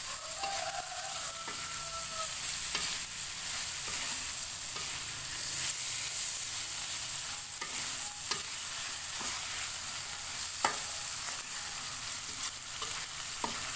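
Green mussels in oyster sauce with chili, tomato and spring onion sizzling in an aluminium wok as they are stir-fried with a metal spatula, the dish nearly cooked. A steady frying hiss runs throughout, with a few sharp clicks of the spatula against the pan.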